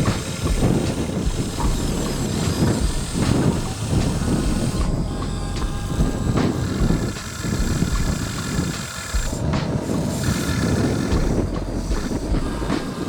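Radio-controlled toy excavator and bulldozer at work: small electric motors and plastic gearing running, with an uneven mechanical rattle that rises and falls.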